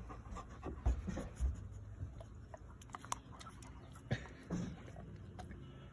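A dog eating a slice of cantaloupe: irregular wet chewing clicks and smacks, with two dull thumps about a second in.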